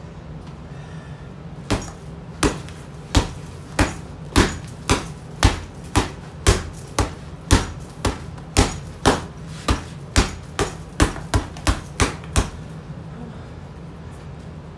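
Fists punching a leather heavy bag lying on a concrete floor: about twenty sharp smacks, around two a second, coming faster near the end.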